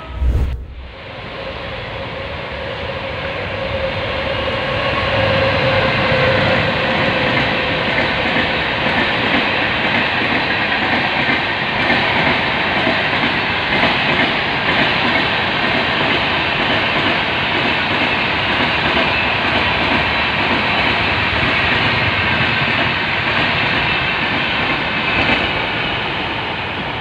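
Express train hauled by a WAP7 electric locomotive running past at speed, a continuous rumble with the wheels clattering rhythmically over the rail joints as the coaches go by. A steady whine sounds over the first several seconds, then fades.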